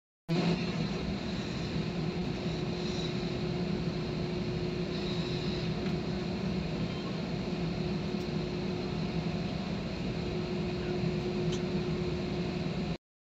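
Steady cabin drone inside a jet airliner on the ground: engine and air-conditioning noise with a constant low hum and a faint high whine.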